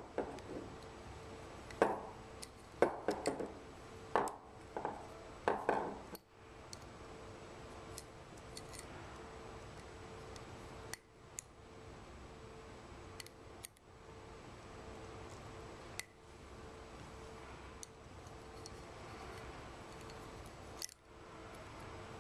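Small metallic clicks and clinks of stainless-steel sampler parts and a seal pick being handled while seals and O-rings are pried off. A quick run of sharp clinks comes in the first six seconds, then only an occasional single click over a faint steady hum.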